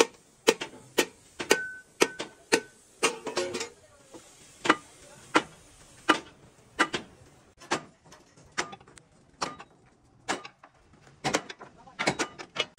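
Hammer blows on steel: sharp metallic knocks, irregular at about one or two a second with short pauses, one blow near the start ringing briefly.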